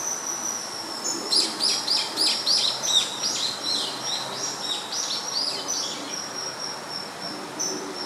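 A bird calling: a rapid run of shrill high notes, about four a second, each dropping steeply in pitch, starting about a second in and lasting about five seconds. Under and after it runs a thin, steady, high whine.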